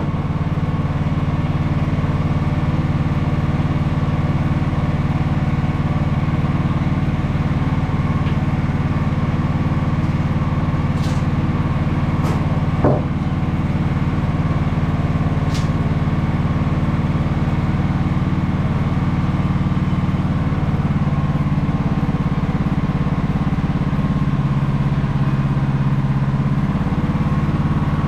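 Small gasoline engine, most likely a portable sawmill's, running steadily at constant speed, its pitch shifting slightly about two-thirds of the way through. A single sharp click about halfway.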